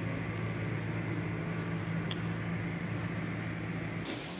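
A steady low mechanical hum, running evenly, that cuts off abruptly about four seconds in.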